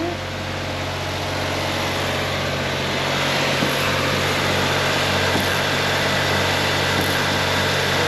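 Suzuki Kei's 660 cc three-cylinder engine running steadily, driving the front wheels off the ground, getting a little louder about two seconds in, with a couple of faint knocks from the right front. The mechanic takes the knock most likely for a cracked driveshaft joint, with a ball joint or hub bearing as other suspects.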